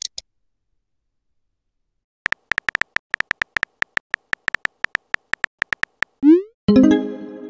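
Rapid phone-keyboard typing clicks, about seven a second, from a text-message animation, starting a little over two seconds in and stopping near six seconds. Then comes a short rising swoosh and a ringing chime that fades out as the typed message is sent.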